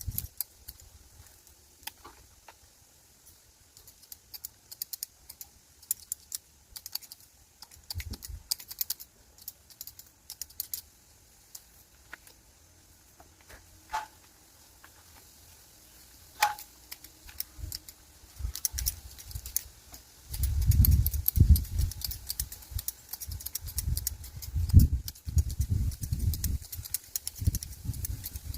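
Bonsai pruning scissors snipping and clicking in quick, irregular runs. In the last third, heavy low bumps and rumbling from handling come in.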